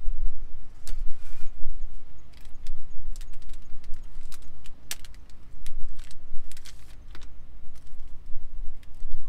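Scattered light metallic clicks and clinks of cookware and a stainless cup being handled and set down on a metal-topped camp table, over a low, unsteady rumble.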